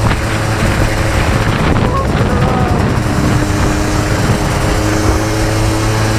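Yamaha Blaster 200's two-stroke single-cylinder engine running steadily under way, with wind buffeting the microphone.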